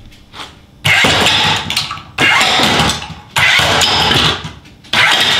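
Combat robot's axe weapon, driven by a pit-bike starter motor through a gear, firing in four loud bursts of about a second each; each starts abruptly and stops, the motor switched by relays and cut by limit switches at the ends of the axe's swing.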